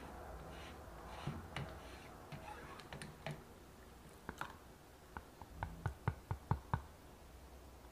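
Steel pot of chocolate mixture on the heat, stirred with a wooden spatula: faint scraping and a few soft clicks, then a quick run of about ten sharper clicks in the second half.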